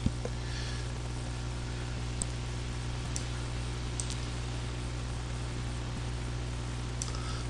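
Steady low electrical hum and hiss of the recording microphone, with a few faint mouse clicks about two, three and four seconds in.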